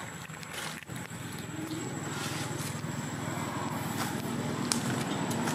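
A low engine hum, like a passing motor vehicle, growing steadily louder, with a few faint clicks.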